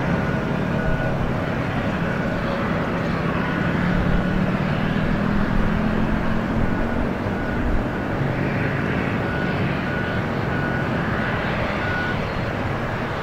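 Steady rumble of a distant Boeing 757's jet engines at taxi power, with a low hum that swells and fades in the middle. A run of short high beeps like a vehicle's reversing alarm sounds at the start and again later on.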